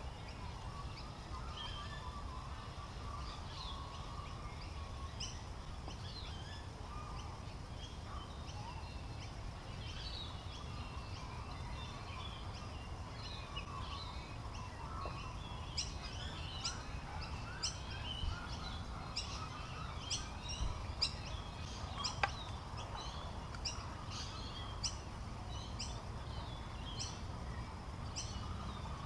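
Wild birds chirping and calling over a steady low rumble. Short high chirps come faster and thicker in the second half.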